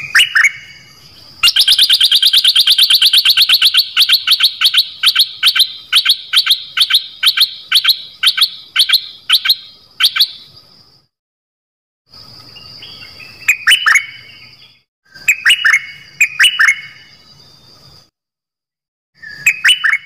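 Stripe-throated bulbul calling: a long run of sharp, repeated notes that starts fast and slows over about nine seconds, then bursts of short down-slurred chirps. The song stops dead twice, for about a second each time.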